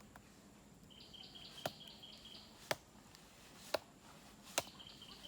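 Forest ambience: a bird calling in a quick run of short, high two-pitched notes, heard twice. Four sharp clicks come about a second apart.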